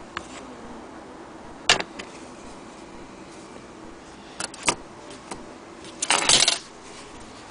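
Handling noise: a sharp knock about two seconds in, a quick pair of clicks past the middle, and a short rattle, the loudest sound, near the end.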